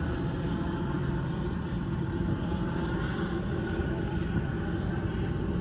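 An engine running steadily, a continuous low hum with an even pitch and no change in speed.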